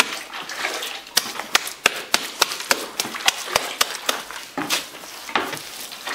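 Hands slapping and patting wet cob mud onto an earthen wall: a run of sharp slaps about three a second starting about a second in, then a few scattered slaps near the end.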